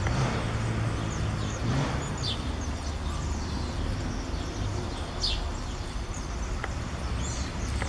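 A steady low rumble of background noise, with a few short, high, falling bird chirps about two and five seconds in. A rufous-bellied thrush splashes as it bathes in a shallow rainwater puddle, with a small splash near the end.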